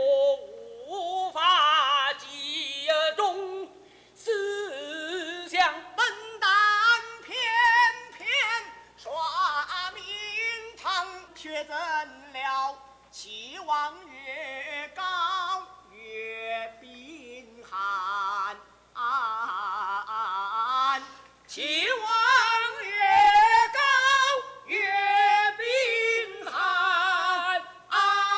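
Two actors singing in Chinese opera style, in long phrases with a heavy, wide vibrato, now one voice, now both together. The singing gets louder near the end.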